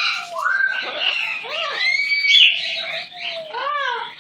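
Pet bird calling: a run of short chirps and whistled notes that glide up and down in pitch.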